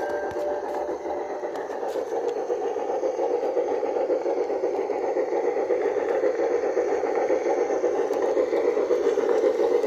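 Piko BR 80 G-scale model locomotive and its wagons running on garden railway track: a steady whirr and rattle of the motor, gears and wheels on the rails, with a few clicks in the first two seconds, growing a little louder as the train comes close.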